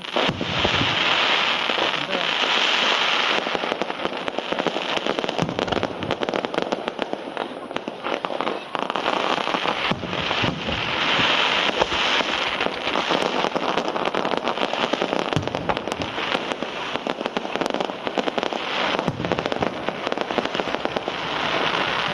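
Aerial fireworks display: a dense, continuous crackling of many small pops, with a few deeper booms scattered through it, swelling near the start and again about halfway.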